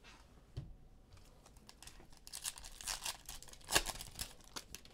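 Foil wrapper of a football trading-card pack being torn open and crinkled in the hands. The crackling starts about two seconds in and peaks with a sharp snap of the tear near the end.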